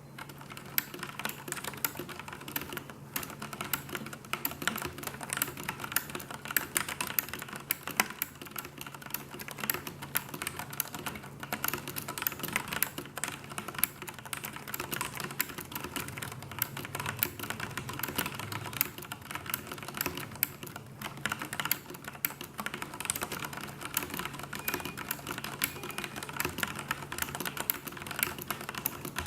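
Continuous fast typing on a Filco tenkeyless mechanical keyboard with linear Cherry MX Black switches and thin stock ABS OEM-profile keycaps: a dense, uneven stream of key clacks. The owner finds the sound horrible.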